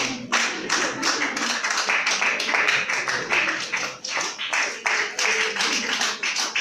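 An audience clapping, many hands at once: a dense run of overlapping claps.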